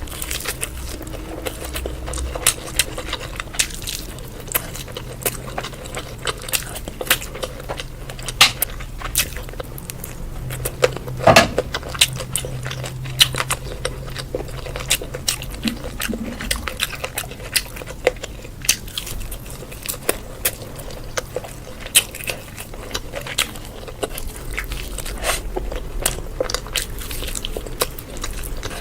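Close-up eating sounds: a person chewing and biting food, with a steady run of short mouth clicks and one louder bite about eleven seconds in.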